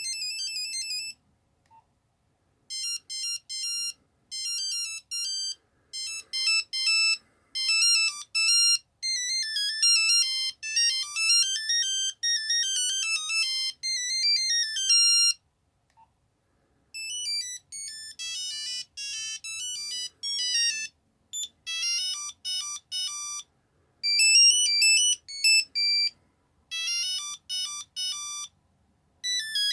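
Nokia 3210 monophonic ringtones playing one after another: quick melodies of single beeping notes. There is a short pause between tunes about a second in, another around halfway, and a new tune starts near the end.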